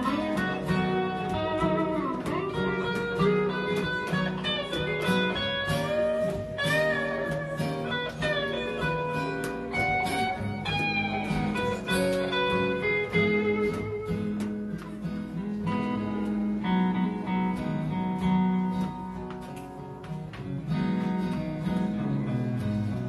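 Instrumental guitar break: an electric guitar plays a bluesy lead with bending notes over a strummed acoustic guitar, easing off briefly near the end.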